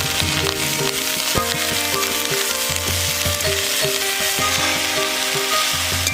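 Food sizzling as it fries in a pan, with stirring, under background music with a melody that moves note by note.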